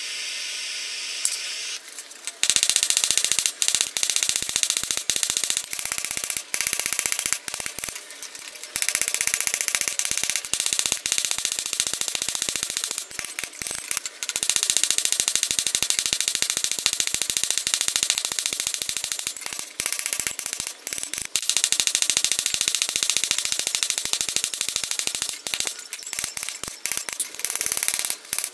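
A steady hiss, then from about two seconds in a hammer striking red-hot O1 tool steel on the anvil in a fast, dense clatter of blows as the knife blade is forged.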